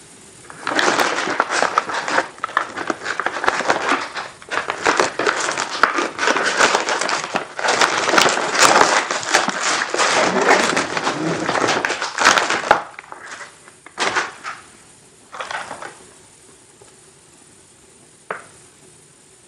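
Plastic cookie packaging being crinkled and torn open: dense crinkling and crackling for about twelve seconds, then a few separate taps and clicks.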